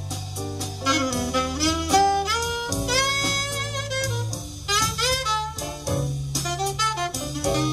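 Small-group jazz ballad: an alto saxophone plays the melody with sliding, bending notes over sustained double bass notes and light cymbal strokes from the drums.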